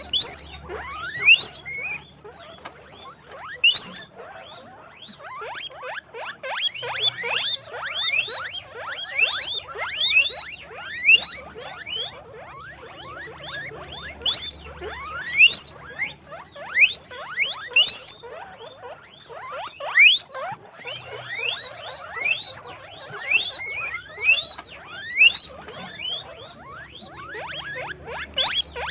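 Several guinea pigs squeaking (wheeking) over and over: many short, rising squeals, often overlapping, with no pause.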